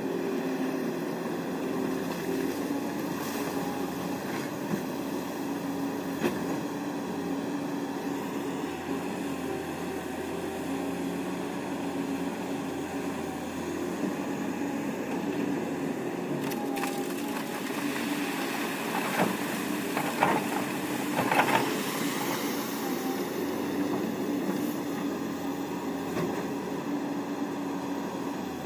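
Kobelco hydraulic crawler excavator's diesel engine running steadily, with scattered knocks and clatter that bunch together about two-thirds of the way through.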